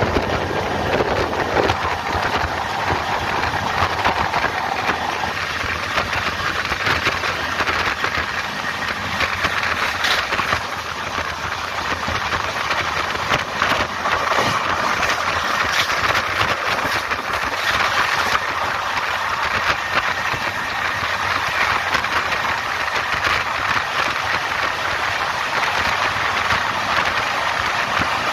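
Steady rush of an LHB passenger coach running at about 130 km/h, heard from its open doorway: wheels running on the rails, rushing air and the coach rattling, with faint clicks scattered through it.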